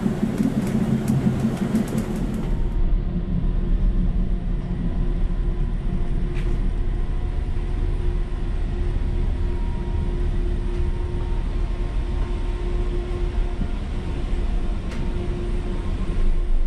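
Interior of a CAF Urbos AXL light-rail tram running along the track: a steady low rumble from the wheels and running gear, with a faint steady hum over it.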